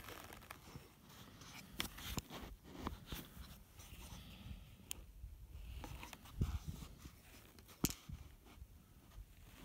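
Faint irregular rustling, clicks and crunches over a low rumble: the rubbing and jostling noise of a makeshift first-person camera rig on the move.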